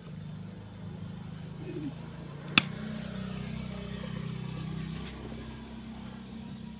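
A single sharp snip of hand-held cutters closing on a stem or wire about two and a half seconds in, over a steady low hum.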